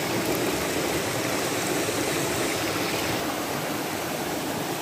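Shallow rocky mountain stream rushing and splashing over stones in a steady wash of water noise, a little duller about three seconds in.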